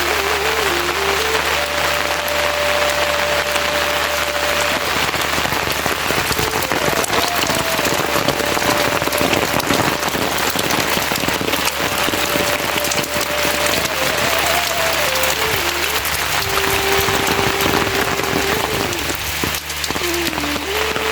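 Steady, dense rain hiss. Through it runs a faint melody line of held notes that glide up and down.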